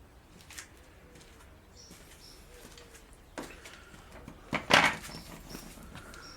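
Tools and parts being handled during tractor transmission repair: scattered small clicks, a sharp knock about three and a half seconds in, then a louder short clatter a second later.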